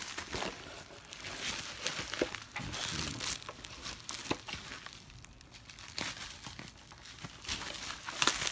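Bubble wrap around a new headlight assembly crinkling and rustling as it is handled, in irregular crackles.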